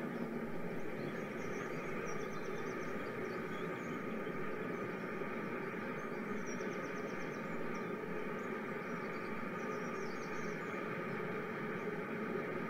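N gauge model coal train of loaded open wagons running past, with the steady rolling noise of small metal wheels on the rails.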